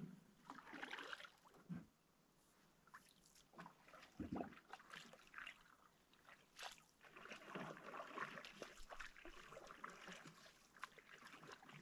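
Faint canoe paddle strokes: the paddle dipping and water trickling and sloshing off the blade and around the hull in scattered, irregular splashes. A soft low thump about four seconds in.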